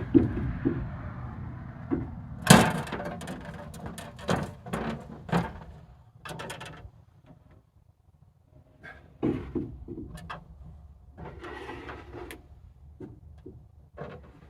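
A series of scattered knocks and clunks, the loudest about two and a half seconds in, over a low engine hum that fades out about six seconds in.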